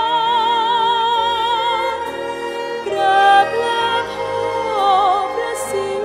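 A slow Thai song: a singer holds long notes with a wide vibrato over a steady instrumental accompaniment, starting a new phrase about three seconds in.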